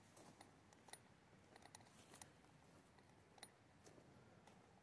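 Near silence, broken by faint, irregular ticks and clicks, a few each second.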